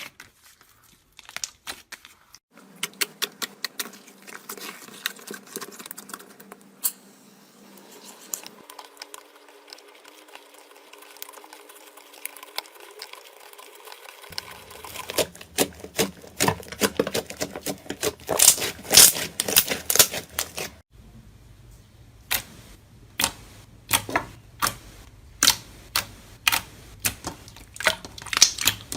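Slime being squeezed and poked by hand: a long run of sharp sticky clicks and small pops, thickest between about fifteen and twenty seconds in.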